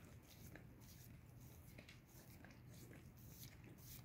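Faint wet clicks of a dog licking and nuzzling a bare foot, over a low steady hum; otherwise near silence.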